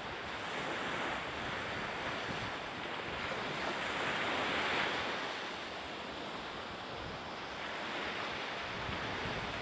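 Steady rushing of wind and choppy sea water, with wind buffeting the microphone; it swells slightly about four to five seconds in.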